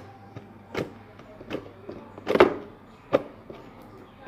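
Slime being squeezed and pressed by hand, making four sharp wet clicks and pops about three-quarters of a second apart, the loudest a longer squelch a little past halfway.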